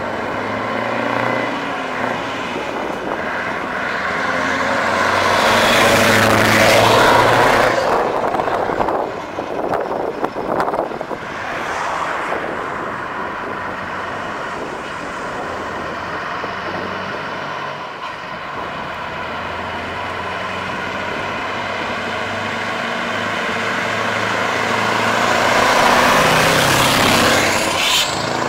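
Heavy trucks with open exhaust pipes driving past one after another. A Scania 143's V8 swells to a loud pass-by about six seconds in. Near the end, a blue Scania R-series' engine grows louder and peaks as it passes close.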